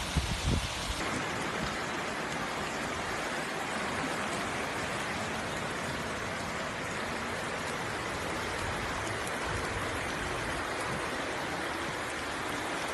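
Floodwater rushing in a steady, even roar. A few low bumps come in the first second.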